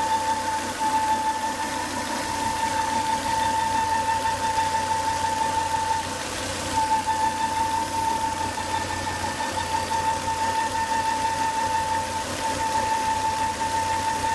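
Volvo S80 2.5T five-cylinder turbo engine running with a steady high-pitched whine over the engine noise, fading briefly twice. The whine comes with excessive intake/crankcase vacuum, which the owner cured by replacing the crankcase breather box.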